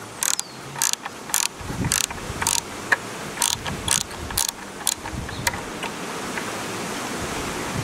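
Ratcheting screwdriver clicking about twice a second as it backs out a stock retaining screw on an air rifle, followed by a steady hiss for the last couple of seconds.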